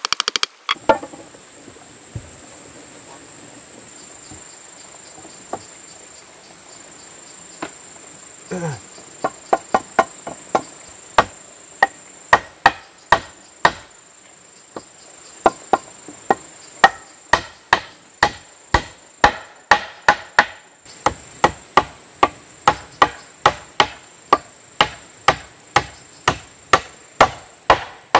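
Hammer blows on a wooden brace being fitted into a timber frame: a few knocks at the start, then steady strikes about twice a second from about a third of the way in. A steady high insect buzz runs underneath.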